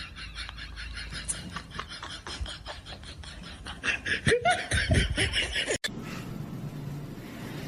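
A person laughing in quick repeated bursts, loudest about four to five seconds in, then cut off abruptly; a steady faint hiss follows.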